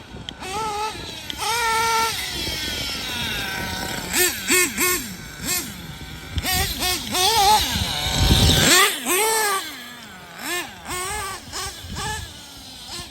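Kyosho Inferno Neo ST 3.0's small nitro engine screaming at high revs. It holds a high whine, then winds down, then gives a string of quick throttle blips, each pitch rising and falling. A short rushing noise comes about eight seconds in.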